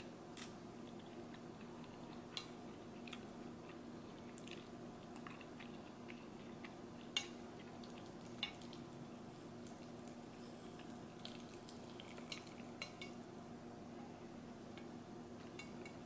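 Metal chopsticks clicking against a glass baking dish as black bean noodles are stirred and lifted, scattered sharp clicks, the loudest about seven seconds in, with some chewing between them. A steady low hum runs underneath.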